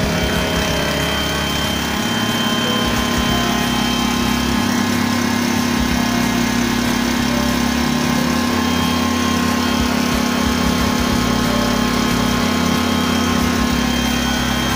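Small stationary engine driving a coffee-bean grinding mill, running at a steady speed with an even drone while roasted beans are ground into powder.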